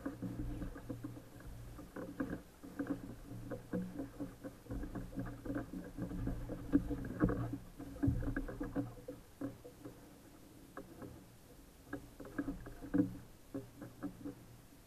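Irregular knocks, clatter and water slapping on a small boat's hull as an angler moves about fighting a hooked fish. Busiest through the first nine seconds, quieter after about ten seconds, with a few louder knocks near thirteen seconds.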